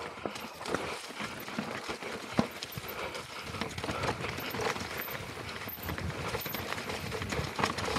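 Mountain bike rattling down rocky singletrack: tyres crunching over dry leaves and loose stones, with many irregular knocks and clatters from the bike as it hits the rocks.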